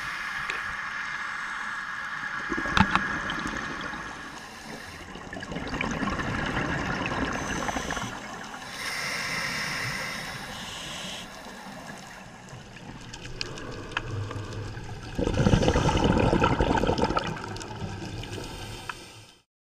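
Scuba diver breathing through a regulator, heard underwater through the camera housing: irregular rounds of bubbling exhaust, the loudest near the end, then it fades out.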